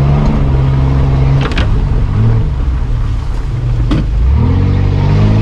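Mitsubishi Pajero's engine heard from inside the cab, pulling under load through mud. The revs drop about a second and a half in and climb again near the end, with a sharp knock about a second and a half in and another about four seconds in.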